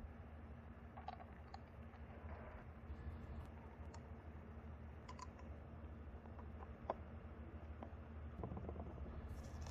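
Faint, scattered clicks and taps as a plastic cartridge oil filter housing cap and a paper filter element are handled in nitrile-gloved hands, with one sharper click about seven seconds in, over a low steady hum.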